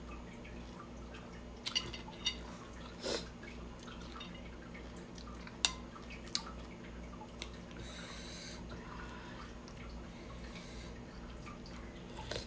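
Close-up eating sounds: a metal spoon clicking against a ceramic bowl a handful of times, with wet chewing and lip smacks, over a steady low hum.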